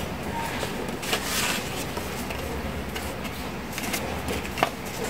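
Paper and craft materials being handled: a short rustle about a second in and sharp clicks, the loudest near the end, over a steady low hum.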